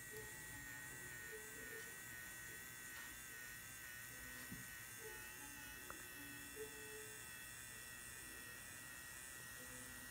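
da Vinci 3D pen's filament feed motor running as it extrudes plastic: a steady high whine that wavers slightly in pitch.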